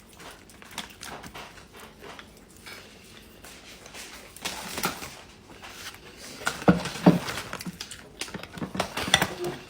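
Someone chewing a mouthful of cheeseburger: soft, irregular wet mouth noises and small clicks, louder about seven seconds in.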